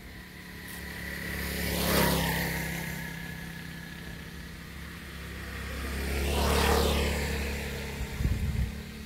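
Two motor vehicles drive past one after the other, each engine swelling and fading away, the first about two seconds in and the second near seven seconds. A brief low clatter follows near the end.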